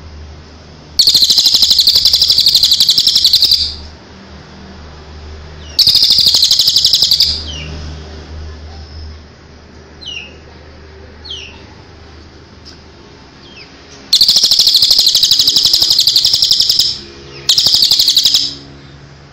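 Crested jay (cililin) giving its loud, rapid-fire rattling 'tembakan' call, four bursts of one to three seconds each, with a few faint short notes in the gaps.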